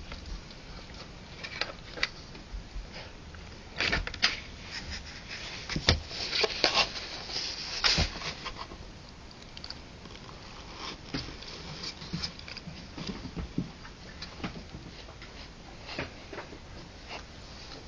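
Three-week-old harlequin poodle puppies moving about: irregular light taps, scratches and scrabbling, busiest from about four to eight seconds in.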